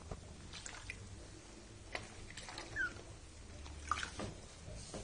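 Guinea pig moving about in a bathtub: faint scattered taps and clicks, with one short high chirp about three seconds in.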